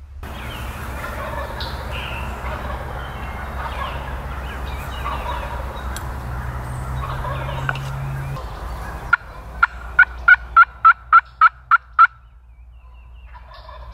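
A wild turkey gobbler gobbling over a steady background hiss, then near the end a quick run of about nine evenly spaced turkey yelps, about three a second.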